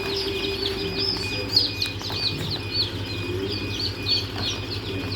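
A crowd of newly hatched Improved Kienyeji chicks peeping, many rapid high chirps overlapping continuously, over a steady low hum.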